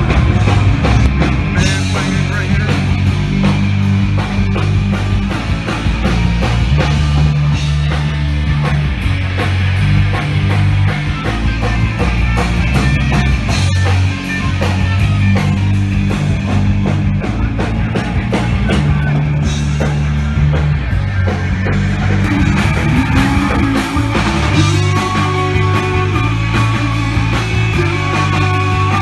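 Rock band playing live through a stage PA: electric guitars, bass and a drum kit keeping a steady beat.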